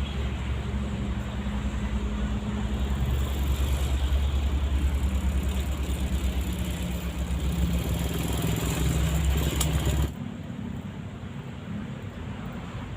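An engine running steadily with a low, rapid pulsing throb, which stops abruptly about ten seconds in, leaving quieter background noise.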